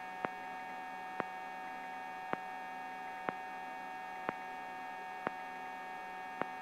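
Steady electrical hum of a helicopter's intercom audio feed, made of several fixed tones, with a sharp tick about once a second.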